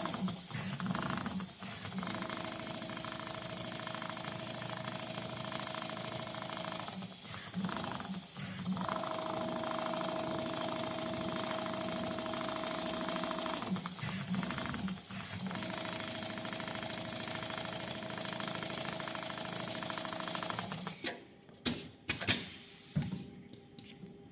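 Richpeace rotating-head sewing machine stitching a pattern into leather upholstery, running steadily with a constant hum and high hiss. It breaks off briefly three times, then stops about 21 seconds in, leaving a few clicks.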